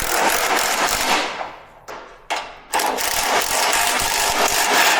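A small motorised tool running with a rattling whir, in two long runs separated by a short blip about two seconds in.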